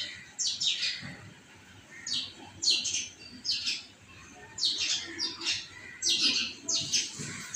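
Small birds chirping repeatedly: a string of short, high chirps every half second or so, some falling in pitch.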